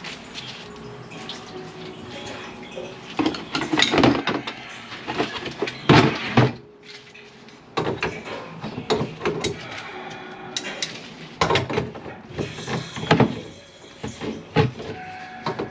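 Water splashing and sloshing in a plastic bucket under a blocked kitchen sink drain, with irregular knocks and clatter as plumbing parts are handled. The water is draining from a full P-trap.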